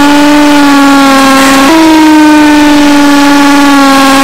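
Ryobi cordless drill driving a 5/16-inch bit into a steel impact-driver anvil: a loud, steady motor whine that sags slowly in pitch under load and jumps back up once just under two seconds in. The bit is making little headway in the steel.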